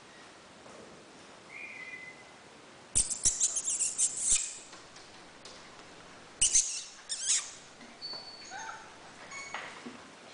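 Weimaraner puppies at play close to the microphone: two bursts of rapid clattering clicks and knocks, then short high-pitched squeaks and whimpers from the puppies near the end.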